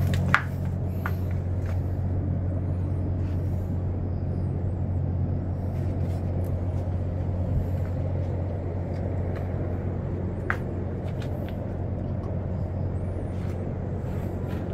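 Steady low hum of large exhaust fans (blowers) ventilating a closed-house chicken barn, with a few faint clicks.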